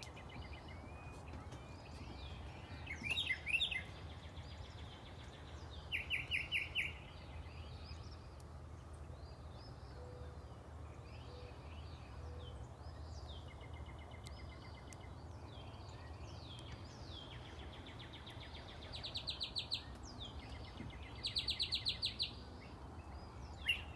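Songbirds singing outdoors: short rapid trills and chirps come every few seconds, with the loudest bursts about three seconds in, about six seconds in, and twice near the end. A steady low rumble runs underneath.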